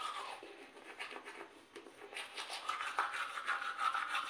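Manual toothbrush scrubbing teeth: a quick, wet scratching, stroke after stroke, with a brief lull midway.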